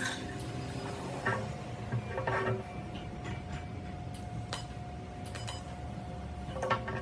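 Metal workpieces clinking and knocking against each other and the bench, a handful of separate clinks with a brief ring, over a steady background hum.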